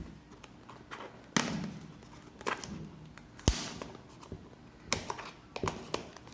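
A small boxed product being handled and opened by hand, giving a few scattered taps and knocks, with one sharp click about halfway through.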